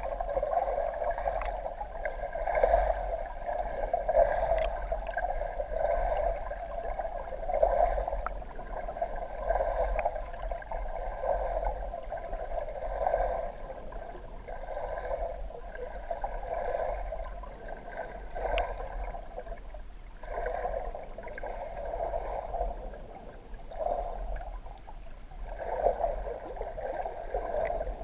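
Muffled, surging water noise picked up by a camera in an underwater housing as it moves through the lake, swelling and fading every second or two.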